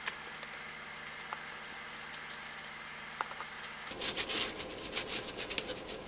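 Small clicks and taps of a circuit board and tools being handled on a rubber workbench mat. One sharp click right at the start, a few faint ticks, then a busier run of light taps and rustles from about four seconds in.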